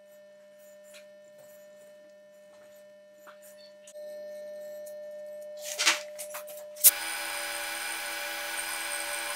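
Faint ticks and rubbing of a hand tap being turned into a steel vise part, over a low hum. A clatter comes near the middle, then a sharp click, and from about seven seconds a Clausing metal lathe runs steadily with a whine, threading a steel screw.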